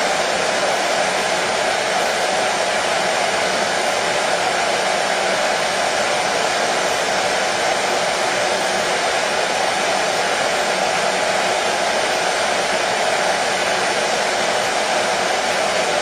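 Electric hair dryer running steadily: a constant whooshing blower noise with a stronger midrange hum, unchanging throughout.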